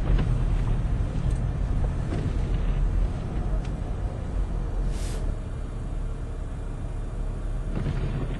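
Steady low rumble of a car driving on a wet, flooded road, heard from inside the cabin, with a brief burst of hiss about five seconds in.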